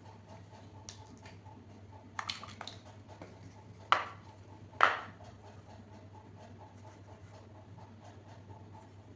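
Small plastic toy kitchen pieces being handled: a few light clicks about two seconds in, then two sharp taps about a second apart, over a low steady hum.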